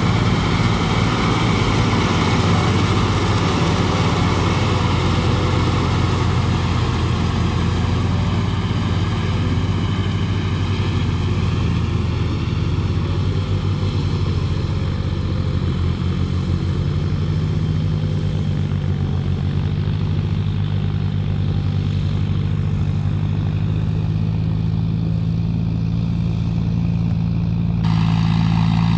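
John Deere tractor's diesel engine running steadily under load, pulling a tilling implement through wet paddy soil. Near the end the sound changes abruptly to another tractor engine running.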